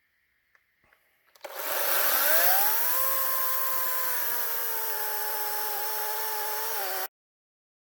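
Greenworks 40-volt cordless electric chainsaw starting up about a second and a half in, its whine rising to speed and then running steadily with the pitch sagging slightly, before cutting off suddenly near the end.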